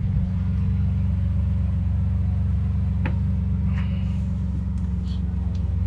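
Lamborghini Aventador LP 700-4's V12 with factory sport exhaust idling, a low, steady and even engine note with no revs. A single short click about three seconds in.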